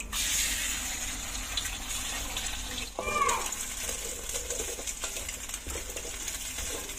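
Egg frying in hot oil in a steel wok, sizzling steadily while a metal spatula scrapes and stirs it into scrambled pieces. A short voice is heard about three seconds in.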